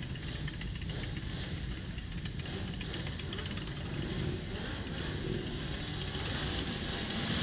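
Several motorcycle engines running at low revs, a group of bikes pulling away one after another.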